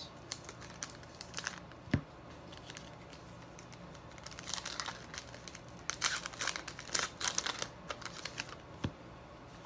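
Trading-card pack wrapper crinkling and tearing as a 2018 Topps Heritage pack is peeled open by hand, in several short spells, with a sharp click about two seconds in and another near the end.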